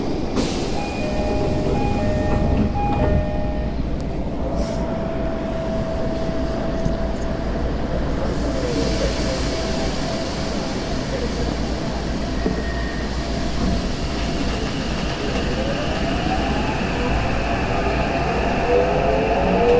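Tokyo Metro 8000 series subway train heard from inside the car, standing at a station and then pulling away. A short run of electronic beeps sounds near the start, then a steady hum. From about fifteen seconds in, the traction motors whine in tones that rise as the train accelerates.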